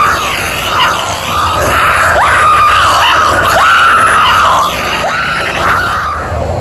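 Halloween animatronic prop playing a shrill scream over and over. Each scream sweeps up quickly to a high held pitch. It comes about four times and drops off near the end.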